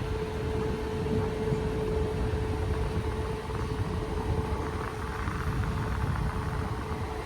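Small box desk fan running at max speed: a loud, steady hum on one pitch over the rush of its air stream.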